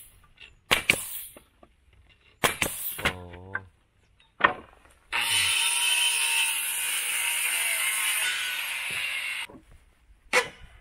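Pneumatic nail puller firing its punch with about four sharp cracks, driving old nails out of pallet wood. In the middle comes a steady hiss of compressed air lasting about four seconds that cuts off abruptly.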